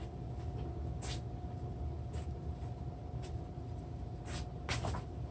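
A man doing Russian twists on a floor mat, with short, noisy breaths and movement sounds about once a second in time with the twists. Under them runs a steady low hum with a faint steady whine.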